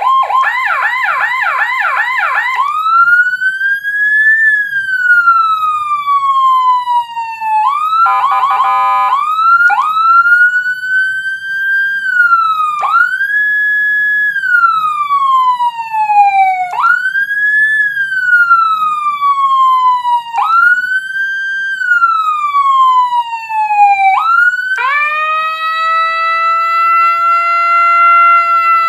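Electronic siren module running through its tones: a fast warbling yelp for the first couple of seconds, then a slow wail that shoots up in pitch and glides back down about every four seconds, broken once by a short buzzing horn blast about eight seconds in, and near the end a steady held tone.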